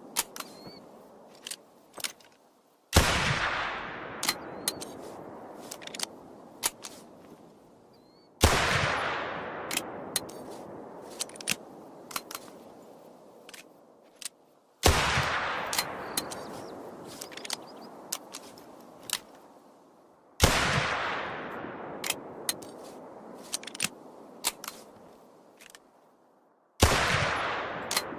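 .45-70 Jernberg Superior single-shot pistol fired five times, about one shot every six seconds. Each shot has a long echoing tail that fades over several seconds. Short sharp clicks come between the shots.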